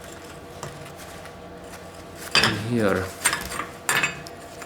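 Metal strut parts clinking against each other as they are fitted onto a shock absorber during reassembly: faint clicks, then a few sharp clinks in the second half.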